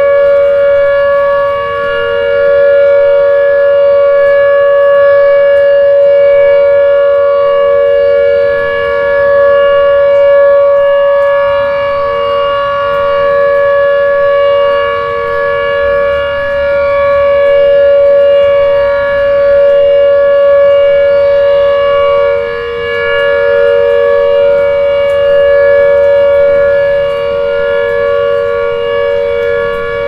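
Tornado warning siren, a civil-defense type, sounding a steady two-pitch alert tone. Its loudness swells and dips slightly, with a short dip about 22 seconds in.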